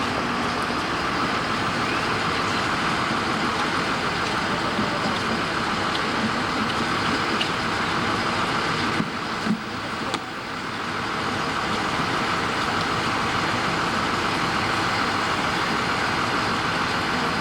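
Steady vehicle engine noise, with a short break about nine to ten seconds in.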